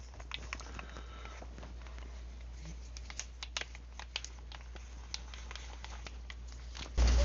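Scattered light clicks and taps of small workshop parts being handled and fitted together, over a low steady hum.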